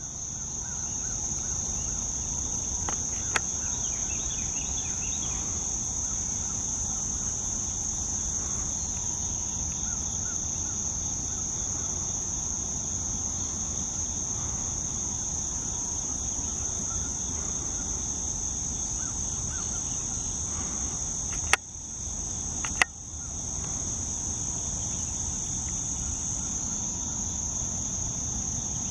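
Steady, high-pitched chorus of insects, an unbroken drone with no pauses. Two sharp clicks about a second apart come past the two-thirds mark, the background dropping briefly after each.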